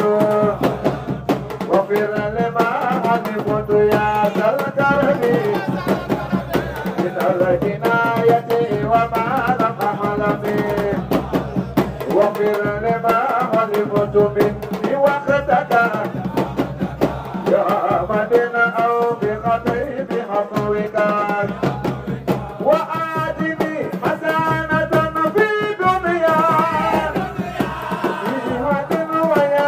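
Sufi zikr chanting: voices singing a repetitive devotional chant over steady hand-drum rhythm, with a low sustained drone underneath.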